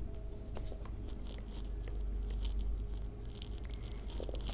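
Quiet handling of a cardboard makeup palette box turned over in the hands: scattered faint scuffs and ticks of fingers on card, over a steady low hum.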